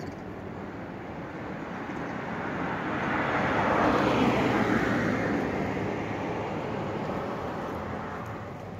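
A car driving past on the road. Its engine and tyre noise swells to a peak about four seconds in, drops in pitch as it goes by, and then fades away.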